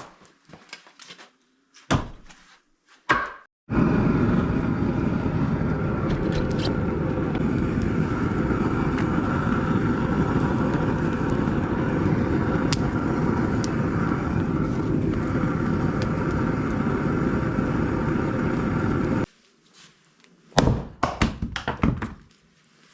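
A few wooden thunks, then an engine running steadily at one speed for about fifteen seconds, starting and stopping abruptly, followed by more knocks near the end.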